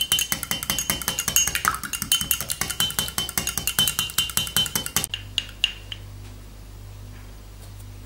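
Fork beating an egg white in a small glass: a rapid, even run of glassy clinks, several strokes a second, that stops abruptly about five seconds in. A few lighter clinks follow as the fork is set against the glass.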